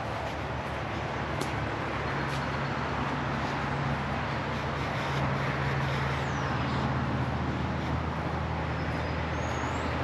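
Motor vehicle engine running nearby over a steady rush of road traffic noise, the low engine hum growing louder through the middle and easing toward the end.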